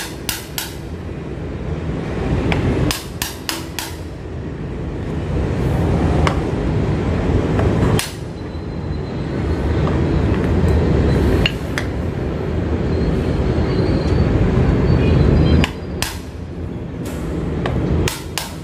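A metal hammer knocks the handle of a small homemade chisel, made from an old drill bit, as it cuts a notch out of PVC pipe. The sharp knocks come in quick clusters of a few blows, with single strikes a few seconds apart in between.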